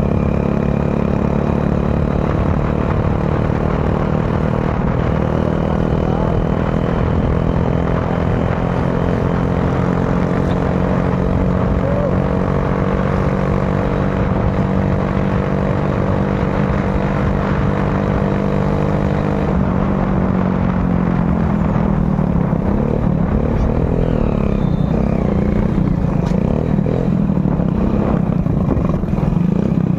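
Motorcycle engine and exhaust running steadily while the bike is ridden at cruising speed, with wind rumble on the microphone. About two-thirds of the way through, the engine note drops and wavers as the bike slows.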